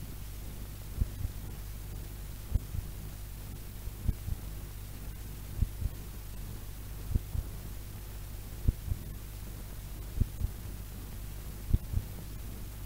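Steady low hum on a cassette recording, with a soft low double thump repeating about every one and a half seconds.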